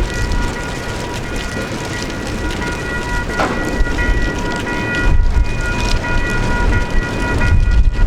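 Diesel freight train rolling along the track: a heavy low rumble with a steady high whine held over it, growing louder near the end.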